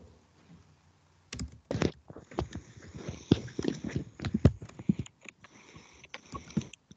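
Typing on a computer keyboard: a run of irregular key clicks, several a second, starting about a second in.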